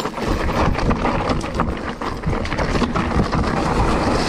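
Mountain bike descending a rocky, gravelly trail: its tyres crunch over stones and the bike rattles with irregular clattering knocks, while wind buffets the camera microphone with a steady rumble.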